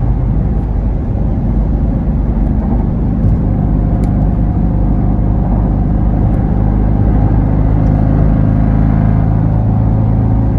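A 2021 Dodge Durango 392's 6.4-litre HEMI V8 and road noise while cruising at freeway speed: a steady low drone.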